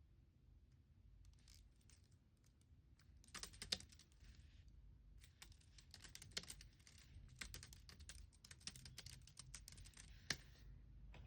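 Computer keyboard typing, faint: a few scattered keystrokes at first, then quick runs of key clicks from about three seconds in, with a couple of louder key strikes.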